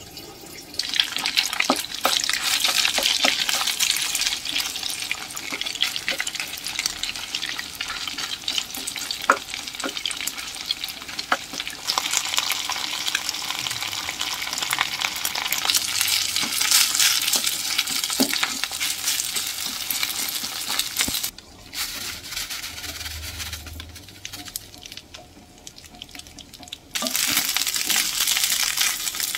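Food frying and sizzling in hot oil in a pan, first longganisa sausages beside scrambled egg, then rice being stir-fried, with the spatula clicking and scraping against the pan. The sizzle drops much quieter for several seconds late on, then comes back loud near the end.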